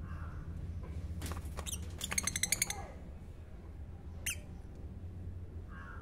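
Lovebirds calling with short, shrill chirps. A quick run of rapid chatter comes about two seconds in, and one sharp rising chirp a little past four seconds. A steady low hum runs underneath.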